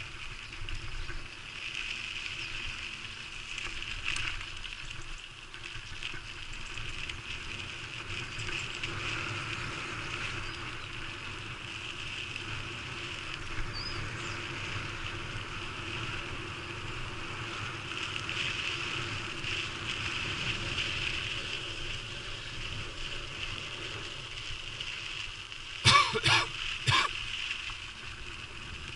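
A steady, high buzzing hum, with a few short loud bursts about 26 seconds in.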